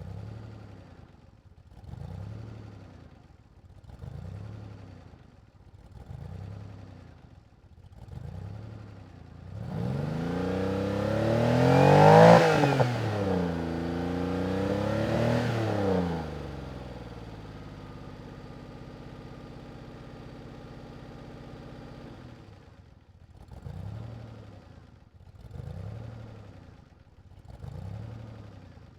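DeLorean DMC-12's V6 engine being revved: a string of short throttle blips about every two seconds, then a long, loud rev-up whose pitch climbs, dips and climbs again before dropping away. It settles into a steady, lower running sound for several seconds, then more short blips come near the end.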